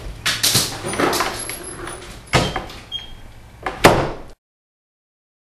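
Wooden front door being opened and banged shut: a run of knocks and rattles, with the loudest bang about four seconds in, after which the sound cuts off suddenly.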